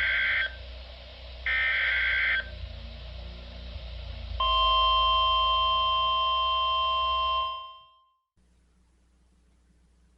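Emergency Alert System SAME header: one-second bursts of warbling digital data tones over radio hiss, the last ending about two seconds in. A few seconds later a steady NOAA Weather Radio alert tone sounds for about three seconds, announcing that an alert message follows, then cuts off into faint hiss.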